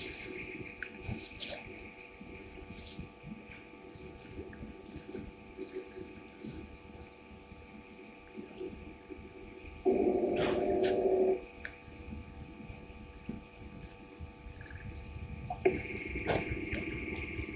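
Night bush ambience at a waterhole: insects trill steadily while a higher call repeats about every two seconds, with frogs calling. About ten seconds in, a louder, lower animal call lasts about a second and a half.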